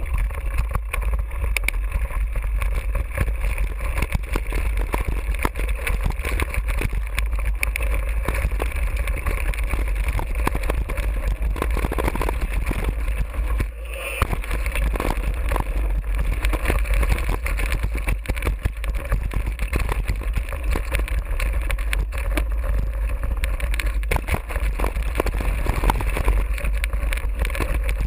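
Mountain bike riding down a rocky dirt trail, heard from a GoPro on the bike: steady wind rumble on the microphone, with constant rattling and knocks from the tyres and bike over stones and ruts.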